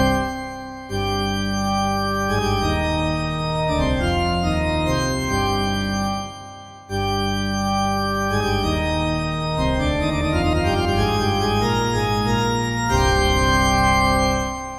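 Church organ playing held chords over a deep bass, the chords changing every second or so. There are two short breaks between phrases, and the last chord starts dying away at the very end.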